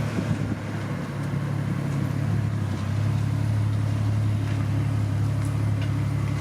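Ford Falcon G6E Turbo's turbocharged 4.0-litre straight-six running steadily at low revs, growing slightly louder in the first couple of seconds.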